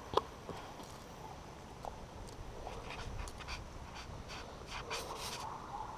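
A dog panting in short, irregular breaths, with a single sharp click right at the start.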